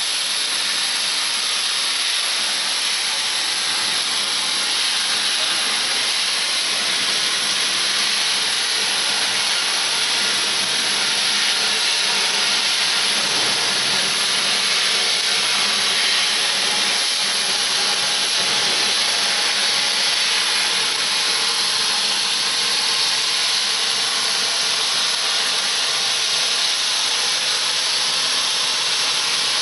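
Steady, loud hiss of a CNC cutting machine running a cut, with a faint, even high whine on top.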